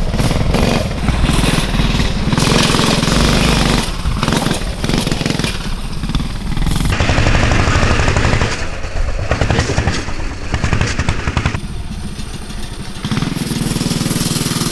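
Small single-cylinder 196cc engines of Coleman CT200U-EX mini bikes running under throttle while being ridden, with the governor screw loosened and a performance kit fitted. The sound changes abruptly a few times.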